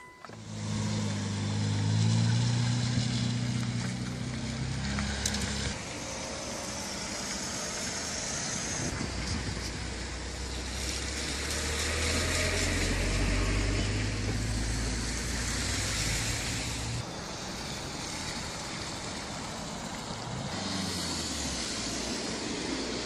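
Road traffic on a highway: a low steady engine hum for the first few seconds, then broader road noise that swells and fades around the middle.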